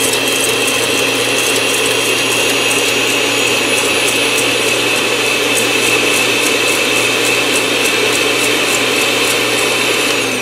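HOMEJOY 5-speed electric hand mixer running steadily with its single wire whisk, beating two raw eggs in a stainless steel bowl: a loud, even motor whine with scattered faint clicks.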